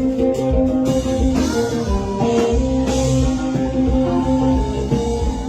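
Band music: an electric guitar playing a solo over drum kit, with cymbal crashes about a second and a half and three seconds in.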